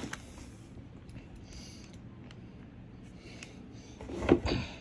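Plastic toy track pieces and bucket parts being handled: faint rustles and light clicks, then a louder knock and short clatter of plastic near the end.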